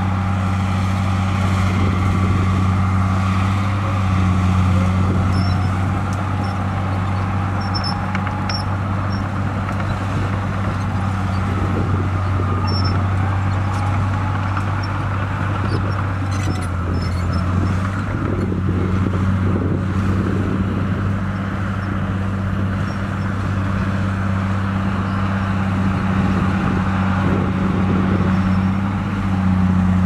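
Komatsu crawler bulldozer's diesel engine running steadily with a low, even hum while the dozer works.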